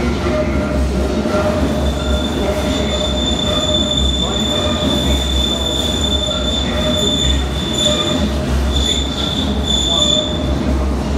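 London Underground S Stock train pulling out along the platform, wheels rumbling loudly. A high, steady wheel squeal sets in about two seconds in and wavers and breaks up near the end.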